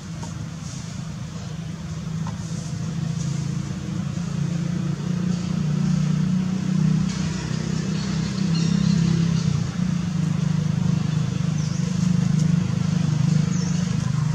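A motor vehicle engine running with a steady low hum, growing louder over the first several seconds and then holding.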